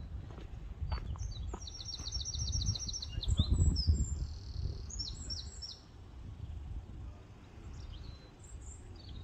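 A songbird singing: a rapid high trill of repeated notes, then several short chirping phrases, with another brief call near the end. A low rumble runs underneath and swells about three and a half seconds in.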